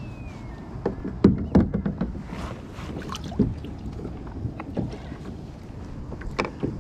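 Irregular knocks and clatter of a landing net and fishing gear bumping against a plastic kayak as a caught fish is lifted aboard in the net.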